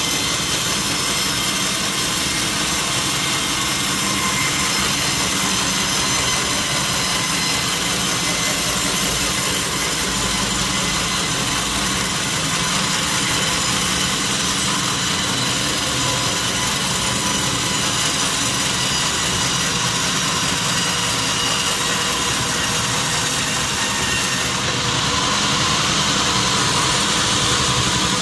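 Sawmill saw machinery running steadily while cutting teak logs, a loud mechanical noise with a steady high whine. It shifts slightly a few seconds before the end.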